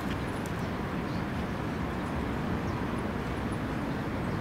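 Steady low rumble of urban and vehicle background noise, even and unbroken, with a few faint high chirps above it.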